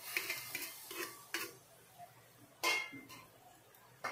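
Lumps of jaggery tipped from a steel bowl into a steel pan of boiling water: a run of light knocks and clinks of metal on metal over the first second and a half, then a louder metal clank with a short ring about two and a half seconds in.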